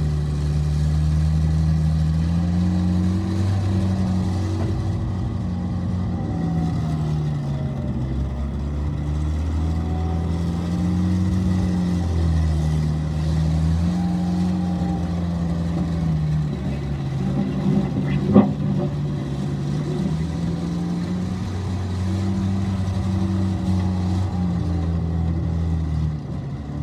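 Bobcat 751 skid steer loader's diesel engine running, its speed rising and falling again and again as the machine is worked. A single sharp clank about two-thirds of the way through.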